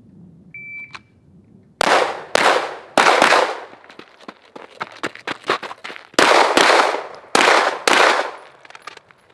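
A shot timer beeps once. About a second later a 9 mm Glock 17 pistol fires eight shots in quick pairs: four shots, a pause of about three seconds with a few lighter clicks, then four more.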